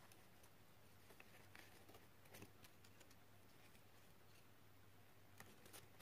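Near silence: a few faint rustles and taps of paper card being handled, over a low steady hum.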